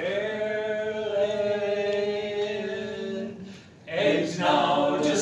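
Male vocal quartet singing a cappella in close harmony: one long chord held for about three and a half seconds, a brief break, then the singing picks up again with moving notes.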